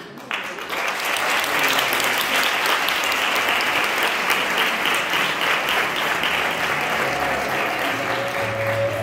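Audience applauding, starting suddenly and holding steady, with music coming in near the end.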